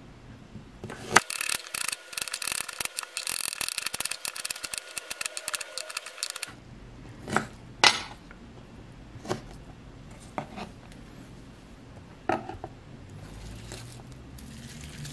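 Kitchen knife rapidly slicing fresh ginger on a wooden cutting board: a fast run of crisp clicks lasting about five seconds, followed by a few separate knocks of the knife against the board.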